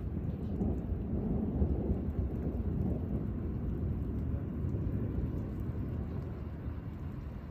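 Rolling thunder: a deep rumble that sets in suddenly, swells over the first few seconds and then slowly dies away.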